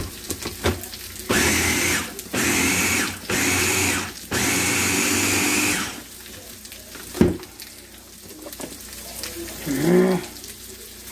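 Small electric food chopper pulsed four times in quick succession, its motor whirring for about half a second to a second and a half each time as it chops ham with mayo and pickles. A single sharp click follows a little later.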